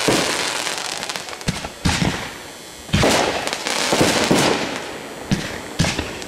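Aerial fireworks going off: about ten sharp bangs from bursting shells in quick succession, with the crackle and hiss of rising tails between them.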